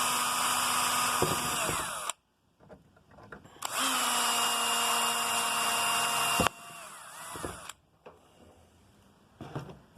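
Electric drill running in two steady runs of a couple of seconds each with a pause between, boring small holes into the plastic housing of a headlight switch; the second run ends in a quieter, lower tail.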